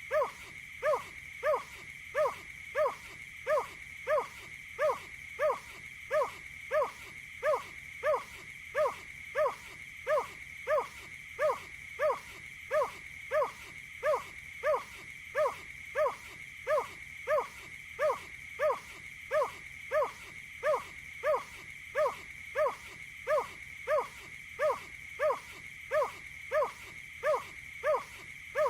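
Marsh bird's call repeated at an even pace, about one and a half short calls a second, each dropping slightly in pitch, over a steady high-pitched whine.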